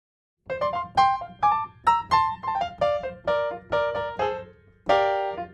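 A piano sound plays a quick melody of separate notes and small chords after about half a second of silence, with a fuller chord struck near the end.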